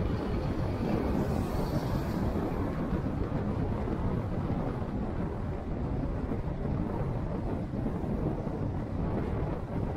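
Steady low rumble of a car on the move: road, engine and wind noise.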